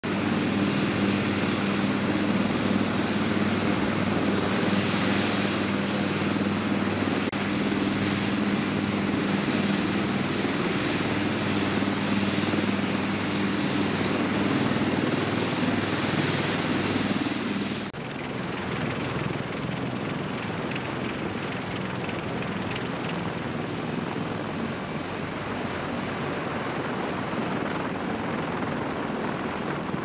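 Helicopters running on a ship's flight deck: steady turbine whine over a low rotor drone. About two-thirds of the way through, the sound drops abruptly to a quieter, steady running noise.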